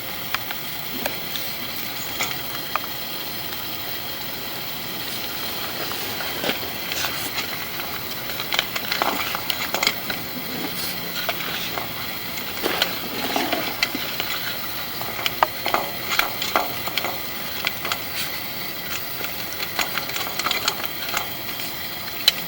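Water running steadily into a sewer line through a cleanout, a constant hiss, with scattered clicks and knocks as a push camera's cable is fed down the pipe.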